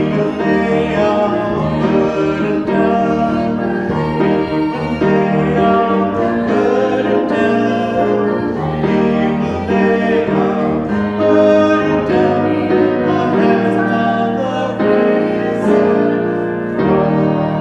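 Piano music, held chords changing every second or so.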